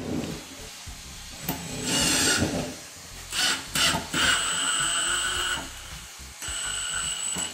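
Compact Milwaukee cordless driver driving a screw. A few short grinding bursts are followed by a steady motor whine from about four seconds in, which stops briefly and starts again near the end.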